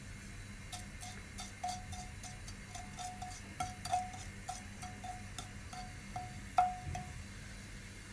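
Cumin seeds crackling in hot oil in a nonstick kadhai for the tempering: sharp irregular pops, about two or three a second, each with a short ringing ping, the loudest near the end, over a faint hiss.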